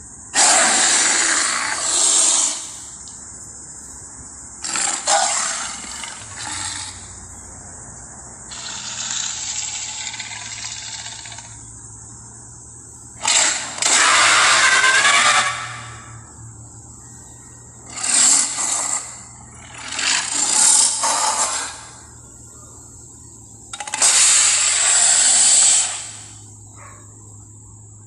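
Ceratosaurus dinosaur sound effects: a series of about seven harsh, rasping roars and growls, each lasting one to three seconds with pauses between them, over a steady background hum and hiss.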